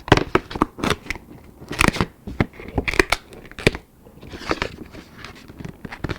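Stiff pre-scored display board being folded by hand, its corner tabs tucked in and pressed onto the adhesive: crinkling and creasing with a string of sharp taps and clicks, and a softer rustle about four and a half seconds in.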